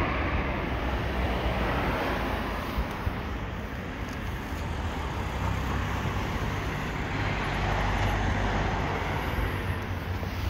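Mash Five Hundred 400 motorcycle's single-cylinder engine idling steadily, a continuous low rumble.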